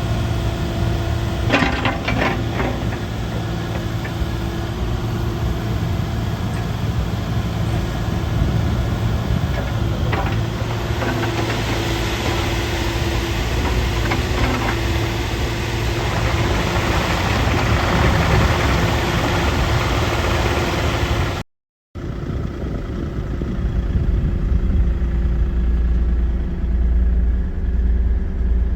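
Kubota U48-5 mini excavator's diesel engine running steadily, with a few sharp knocks about two seconds in. The sound cuts out for a moment about three-quarters of the way through, then the engine carries on with a deeper rumble.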